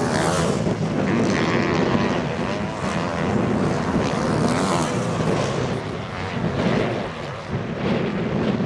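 Motocross bike engines revving hard, their pitch rising and falling over and over as riders throttle on and off through corners and ruts.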